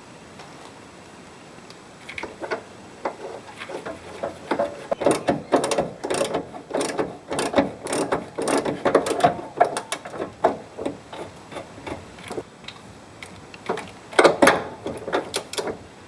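Socket ratchet clicking in quick strokes as nuts are wound down on studs to draw a new radius rod bush into place. The clicking starts about two seconds in, eases off briefly and picks up again near the end.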